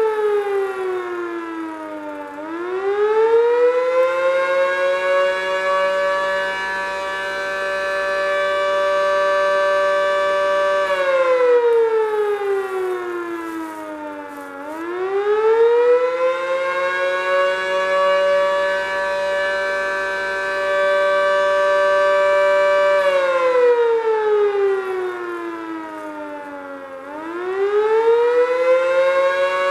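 H.O.R. Siro-Drone fire siren sounding its attack signal. The pitch swoops down, climbs back and holds for several seconds before dropping again, about every twelve seconds, twice over with a third rise near the end. Its tone carries two notes together.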